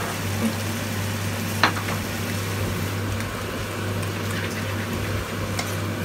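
Rice vermicelli, water mimosa and seafood sizzling steadily in a wok, with a steady low hum beneath. A wooden spatula stirring gives one sharp tap about a second and a half in and a few faint ticks near the end.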